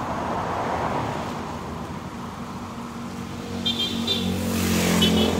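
Roadside motor-vehicle traffic. A passing vehicle's rush fades over the first two seconds, then another engine's hum grows louder from about three seconds in. Two short, high chirps sound near the end.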